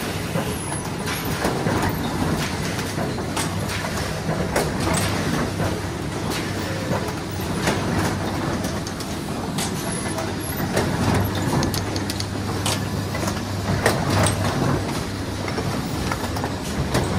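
Nebiolo printing machine running: a steady mechanical hum with frequent clicks and knocks from its moving parts.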